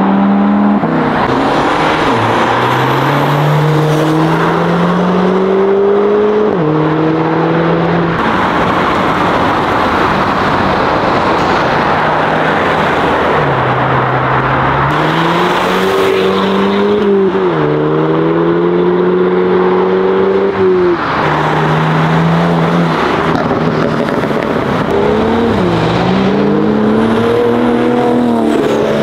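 Modified cars accelerating away one after another. Each engine's pitch climbs as it revs and drops sharply at each gear change, several times over.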